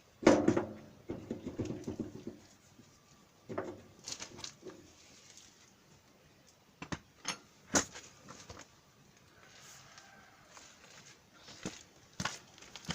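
Scattered sharp knocks and clicks of tools and metal parts being handled, with a denser clattering stretch in the first two seconds.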